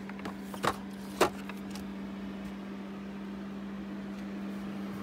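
A motor running with a steady low hum, with a few sharp clicks and rattles of plastic tool packaging being handled in the first second and a half.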